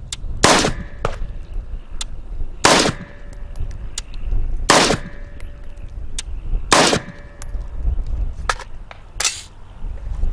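AR-15 rifle firing 5.56 NATO rounds one at a time: five shots about two seconds apart, with fainter sharp clicks between them.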